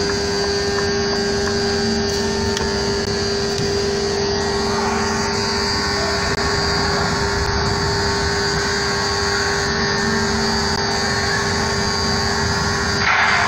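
Steady, unchanging drone of heavy engines and machinery with a constant hum on a ferry's enclosed vehicle deck. A louder rushing noise joins near the end.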